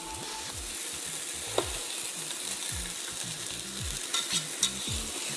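Octopus tentacles frying in oil with chopped onion and celery in a large pot, a steady sizzle. Metal tongs click against the pot once about a second and a half in and a few times near the end.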